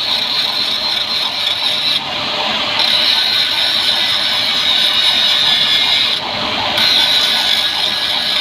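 Welding arc crackling and hissing steadily, with two brief changes in tone about 2 and 6 seconds in.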